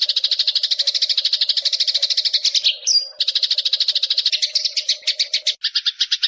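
Eurasian tree sparrow chatter: a fast, dry trill of about a dozen notes a second, broken by a short rising note near the middle and shifting to a lower-pitched trill near the end.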